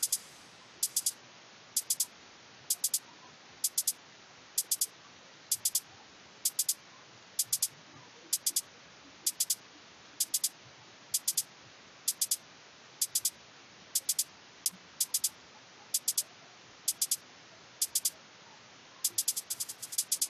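A closed hi-hat from an electronic drum loop plays on its own with reverb: a pair of short, crisp, high hits about once a second. In the last second the hits come thicker and run together. A faint steady hiss sits underneath.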